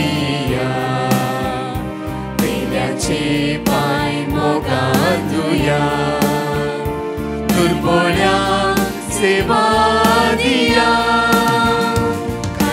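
Devotional hymn sung with instrumental accompaniment.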